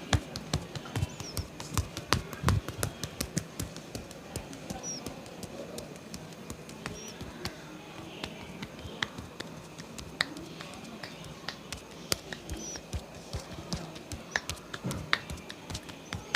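Hands patting, slapping and tapping in a head and body massage: quick, irregular sharp claps and pats, several a second.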